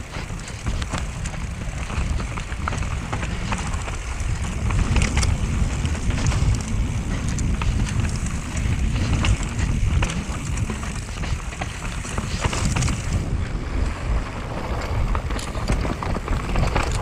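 Mountain bike riding down a rough, rooty trail: tyres rolling over dirt and roots with frequent sharp rattles and clacks from the bike, over a steady low rumble of wind on the microphone.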